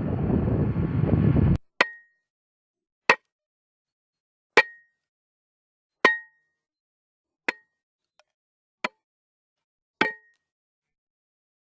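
Wind noise on the microphone cuts off abruptly about a second and a half in, followed by seven short metallic dings, evenly spaced about one and a half seconds apart over dead silence, each ringing briefly at the same pitch.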